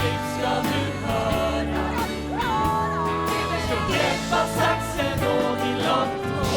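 Song with a band and a choir of singing voices in a gospel style.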